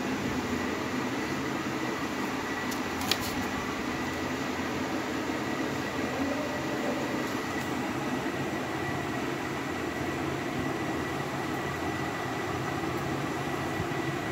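Steady mechanical background hum with a faint high whine, and a single click about three seconds in.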